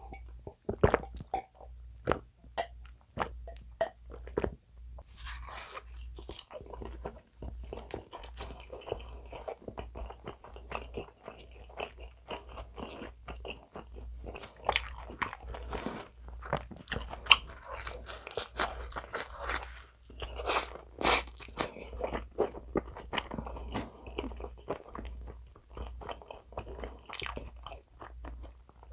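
Close-miked mouth sounds of eating bacon potato pizza: a few separate gulps or mouth clicks near the start, then steady chewing with many crisp crunches and wet smacks of crust and toppings, and bites into a fresh slice.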